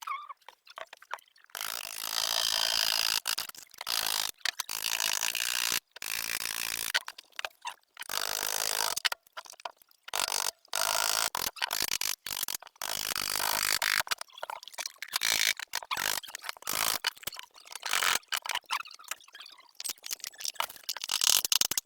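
Bursts of rasping, scraping noise from hand work, each lasting from a fraction of a second to a couple of seconds, starting and stopping abruptly many times.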